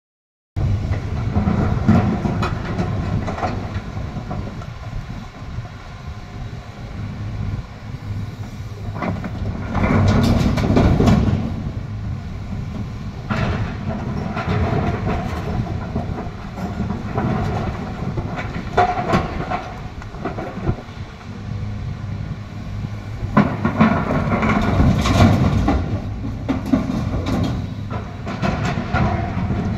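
Volvo EC210 crawler excavator at work, its diesel engine running steadily. Bursts of clattering come as rocks drop from the bucket into the tipper truck's steel body, loudest about ten seconds in and again in the last third.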